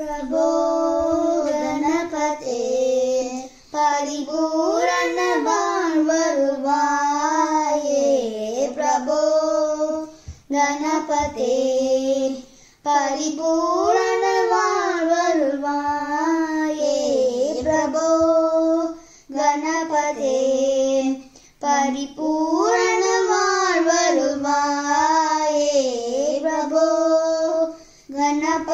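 A child singing a devotional song unaccompanied, a high voice carrying a gliding melody in phrases of several seconds with short breaks between them; the same melodic line comes round several times.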